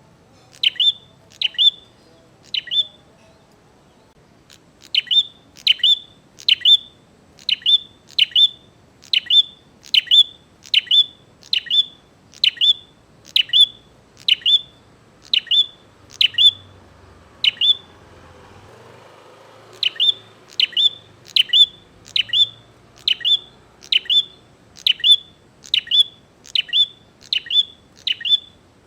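A prinia calling: a long run of sharp, identical chip notes, about one and a half a second. The notes stop for about two seconds twice, once early on and once near the middle. This is the loud, steady calling of a bird in full song that challenges a rival.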